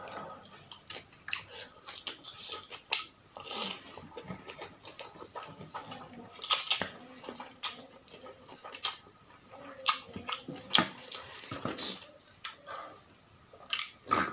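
Close-up eating of super-spicy noodle soup: wet chewing and lip-smacking, with three louder hissing slurps about three and a half, six and a half and eleven seconds in.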